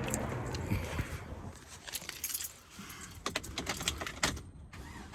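A bunch of vehicle keys jangling, with scattered light metallic clicks, as the keys are handled to start a truck.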